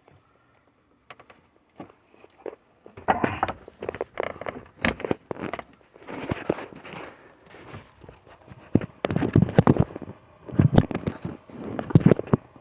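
Irregular knocks, thumps and rustling of someone clambering across attic joists. It starts about three seconds in and is loudest in clusters near the end.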